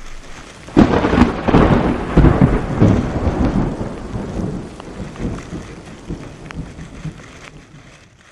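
Thunder from a nearby lightning strike: a sudden crack about a second in, then a long rumble that slowly fades away.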